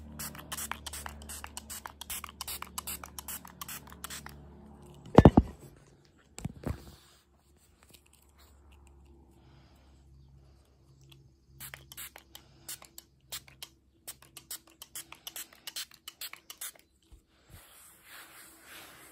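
Quick runs of small scratching and clicking handling noises, with a loud knock about five seconds in and a softer one soon after.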